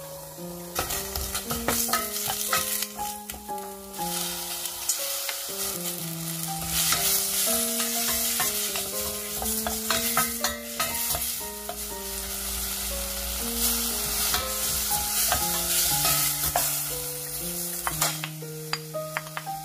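Radish cubes sizzling as they fry in perilla oil in a stainless steel pot, stirred with a spatula that scrapes and clicks against the pot. The sizzle starts about a second in. Light background music with a plucked melody plays throughout.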